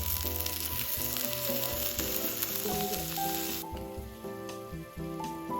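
Yakiniku beef sizzling on a grill, a steady frying hiss that cuts off suddenly about two-thirds of the way through, with background music playing.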